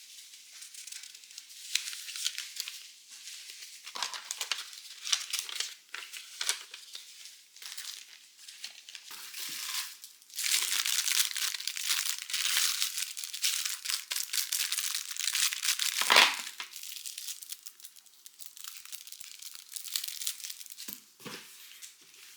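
Packaging being handled and crinkled in irregular bursts. A louder, continuous stretch of crinkling starts about ten seconds in and lasts about six seconds, ending in a sharp crackle.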